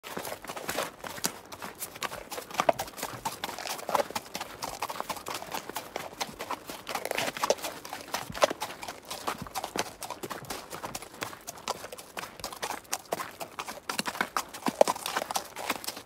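Horse trotting: a steady run of clip-clop hoofbeats, several knocks a second.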